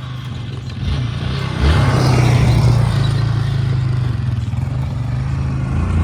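Off-road vehicle engine running hard as riders come up a dirt hill climb. It gets louder about a second and a half in.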